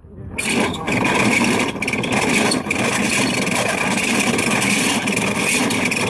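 Cast-iron hand-cranked grain mill with twin spoked flywheels being turned, its burrs grinding dried corn into cornmeal: a steady, loud rasping grind that starts a moment in.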